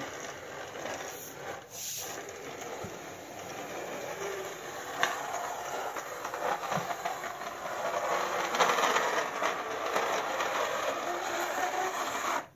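Plastic toy excavator pushed along a tabletop by hand, its crawler tracks and wheels making a steady rolling, rattling noise that grows louder in the second half.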